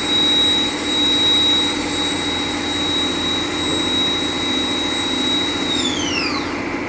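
Macpower Vibrant 500 CNC vertical machining centre running, with a steady high-pitched whine over a low hum and hiss. Near the end the whine glides down in pitch as the spindle winds down.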